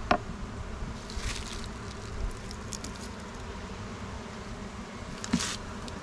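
Honeybees buzzing steadily around an open hive, with a sharp click right at the start and several short scrapes and clicks of a metal hive tool against the wooden frames, the loudest scrape near the end as a frame is worked loose.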